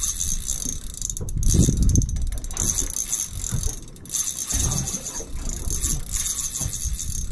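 Fishing reel whirring and clicking as a fish is played on very light drag, with a low uneven rumble underneath.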